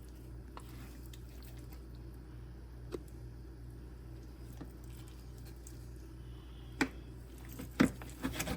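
Knife cutting and trimming the unwanted bits off a skinned raw chicken: a few sharp knocks of the knife against the cutting board, one about three seconds in and a cluster near the end, over a steady low hum.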